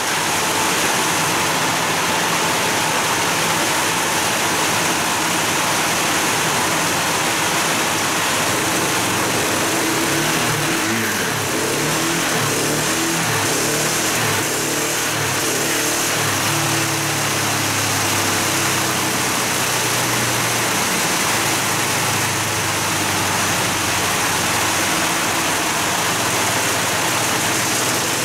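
KTM 690 SMC-R single-cylinder engine running on a dyno in stock form during a power run, its pitch shifting as it is revved, under a loud steady rush of air from the dyno's cooling fan and exhaust extraction.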